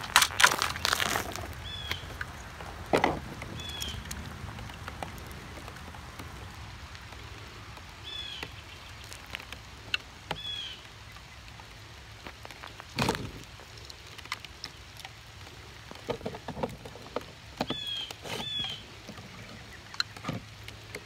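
Lego bricks being handled: scattered clicks, clatters and knocks as the plastic bricks are picked up, pressed together and set down on cardboard, the loudest clatter in the first second. Short high chirps come a few times.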